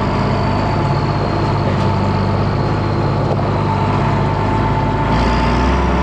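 Heavy farm machine's engine running steadily, with a steady whine over it; about five seconds in the engine note shifts and its low end gets stronger.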